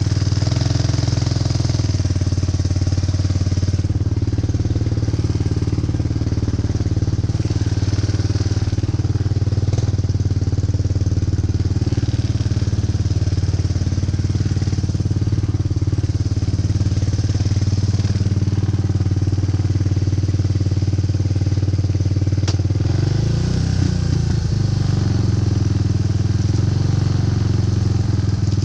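ATV (four-wheeler) engine running steadily under way, with a brief wavering in engine pitch about two-thirds of the way through.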